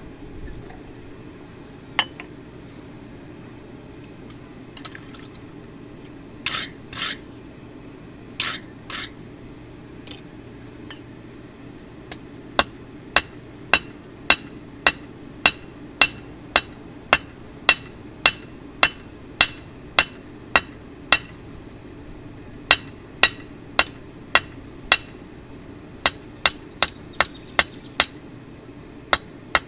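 Hand hammer striking a red-hot steel cold chisel on an anvil, upsetting the flat blade back into a square point. The blows ring and fall evenly, a little under two a second, starting about twelve seconds in with a short pause partway through. A few harsher scraping noises come before the hammering, over a steady low hum.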